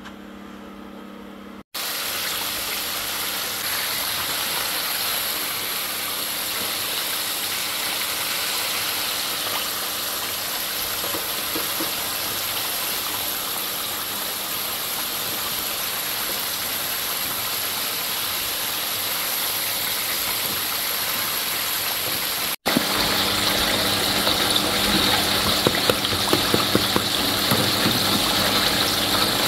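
Battered chicken pieces deep-frying in hot oil in an electric deep fryer: a steady sizzle that starts abruptly about two seconds in. After a sudden break some twenty seconds later it comes back louder and full of sharp crackles and pops.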